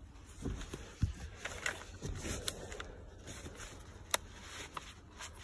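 Handling noise from a new, not-yet-run top-handle chainsaw being turned over and set down on a fabric seat: scattered light knocks, rubbing and small clicks of its plastic housing, with one sharper click about four seconds in.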